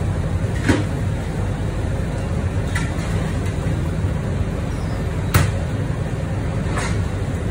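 Steady low mechanical hum of kitchen machinery, with a few light clicks and knocks over it, the sharpest about five seconds in.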